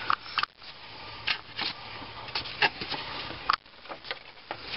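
Scattered light metal clicks and scraping as a replacement fan clutch is spun by hand onto the threaded water pump shaft.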